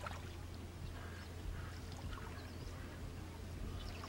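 Quiet outdoor background: a steady low hum, with a few faint high chirps scattered through it.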